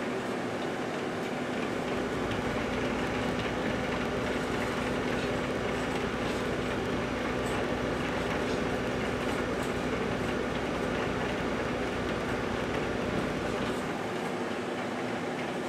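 1978 GE Dual Wave microwave oven running, a steady electrical hum with a deeper low drone that comes in about a second and a half in and drops away near the end. A few faint ticks sound near the middle.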